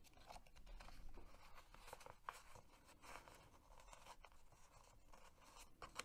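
Faint rustling and small clicks of fingers picking and peeling a paper sticker off a sticker-book sheet, close to near silence.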